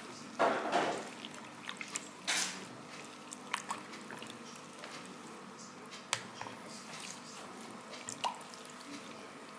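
Metal spoon stirring stinging nettle leaves and orange and lemon slices through liquid in a plastic bowl: wet sloshing and dripping with scattered light clicks. The two loudest splashes come in the first couple of seconds.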